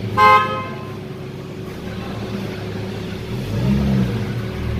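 A short car horn toot just after the start, the loudest sound. Under it the Ford Mustang's engine runs at low speed as the car creeps forward, picking up briefly about three and a half seconds in.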